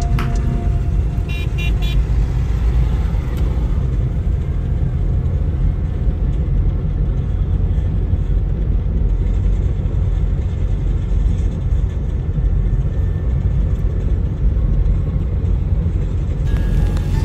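Steady low road rumble of a moving car, tyres and engine heard from inside, with a few quick horn beeps about a second and a half in.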